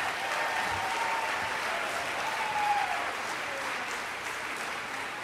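Live audience applauding steadily after a storytelling performance ends.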